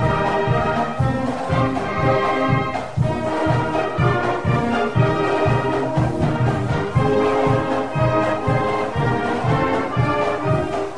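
Instrumental music with brass over a steady bass beat of about two thumps a second, with no singing.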